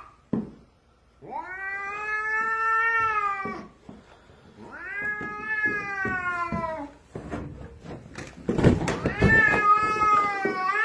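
Domestic cat yowling in three long drawn-out calls of about two seconds each, the pitch sagging at the end of each, with a short rough noisy sound just before the third. It is a hostile threat yowl from a cat guarding the stairs against its owner, whom it has attacked before.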